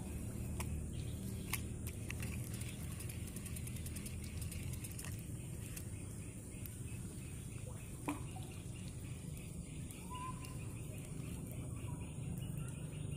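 Scattered clicks and knocks from a fishing rod and spinning reel being handled, over a steady low rumble and a steady high hiss. A faint short whistle sounds about ten seconds in.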